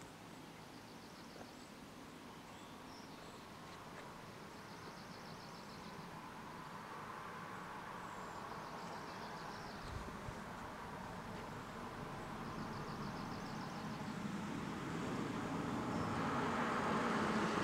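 An SUV approaching on the road, its engine and tyre noise growing steadily louder toward the end. Faint high trills repeat every few seconds in the background.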